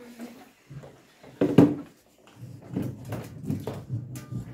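An aluminium drink can knocks sharply onto a table about a second and a half in, then rolls across the tabletop with a low, uneven rumble.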